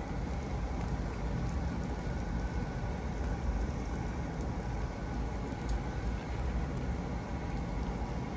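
Food sizzling on a tabletop barbecue grill: a steady crackling hiss over a low, even rumble.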